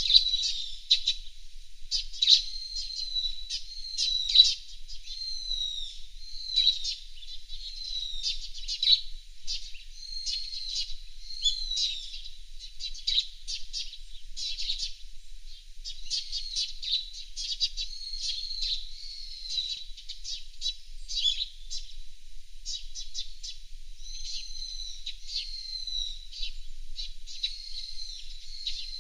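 Small songbirds chirping and twittering continuously in quick, high-pitched notes and short trills, over a faint steady high tone.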